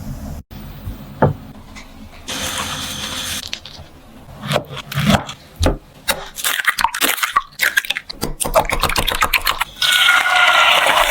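Kitchen sounds: scraping and scattered sharp clicks that build into a dense run of quick knocks. Near the end, food goes into a hot pan and starts sizzling steadily.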